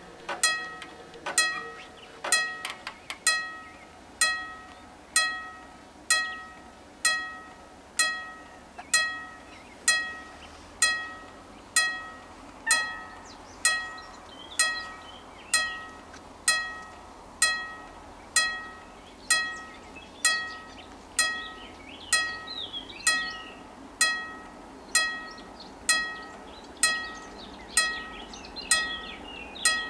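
Level-crossing warning bell ringing in a steady rhythm of about one strike a second, each strike a sharp clang that rings on briefly. It signals that the crossing is closed for an approaching train. Faint bird chirps come in over the second half.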